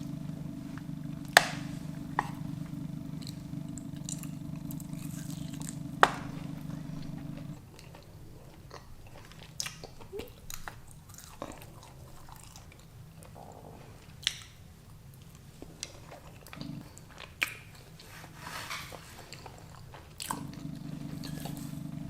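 Eating sounds: chewing and biting on food, with scattered sharp clicks, the loudest two near the start. A steady low hum sits underneath for the first several seconds and again near the end.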